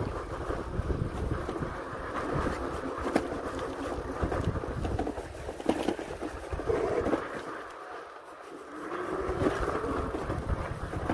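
Wind rumbling on the microphone while a fat-tire electric bike rolls over loose desert ground, with a few knocks and rattles, the loudest about two-thirds through. The wind dies away for a moment near three-quarters through, then picks up again.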